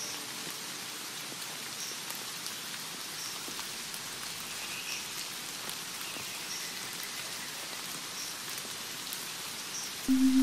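Steady rain falling on leaves, an even hiss with faint high peeps repeating about once a second. A low sustained note of music comes in near the end.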